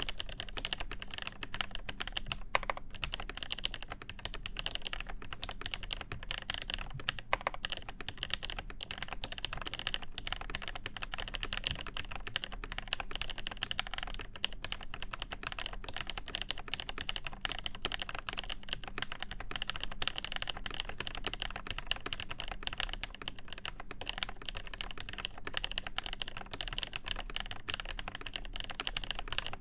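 Continuous typing on a Cherry G80-1813 mechanical keyboard with lubed Nolives switches, PCB-only with no plate, and original Cherry Dolch keycaps. It is a dense, steady stream of key clacks, with a few louder strikes here and there.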